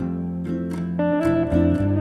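Background music led by plucked guitar, with notes changing every half second or so over short percussive strokes.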